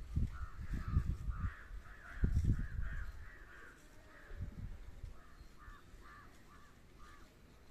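A crow cawing in short repeated calls: a quick run in the first three seconds, then about four more near the end. Low rumbles on the microphone sit under the first run.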